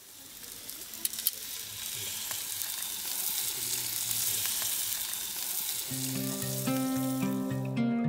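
Steaks sizzling on a grill, a steady hiss that fades in, with a few sharp crackles about a second in. Plucked-string music comes in about six seconds in, and the sizzle cuts off just before the end.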